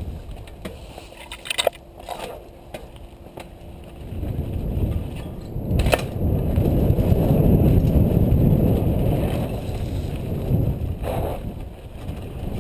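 Specialized Big Hit downhill mountain bike rolling fast down a dirt trail: tyres crunching over dirt and loose rock, with sharp knocks and rattles from the bike. The rolling rumble grows much louder about four seconds in as the bike picks up speed, then eases a little near the end.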